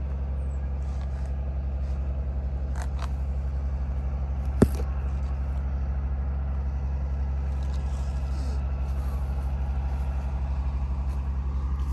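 A steady low engine drone with a fast, even pulse runs throughout. One sharp click comes about four and a half seconds in.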